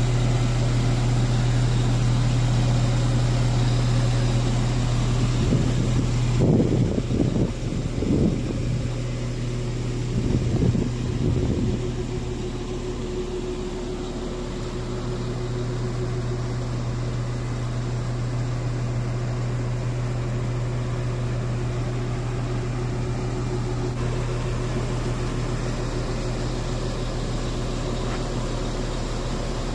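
Shacman heavy truck's diesel engine running steadily, driving the hydraulics as the tipped sewage tank's rear door swings open. About six seconds in there are several seconds of louder, uneven noise, and a steady higher whine follows briefly.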